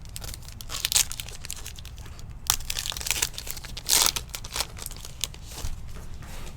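Trading cards and their packaging being handled close up: crinkling and rustling, with sharp crackly bursts about one, two and a half and four seconds in.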